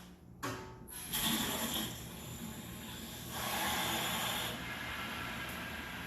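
Water rushing through the opened supply valve and copper piping into a newly installed gas water heater tank as it fills: a steady hiss that starts about a second in, swells louder for a moment, then settles.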